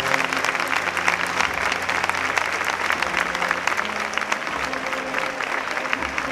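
A large crowd applauding, many hands clapping thickly, as a cornet and drum band's march stops just before. Faint low held notes of band music carry on beneath the clapping.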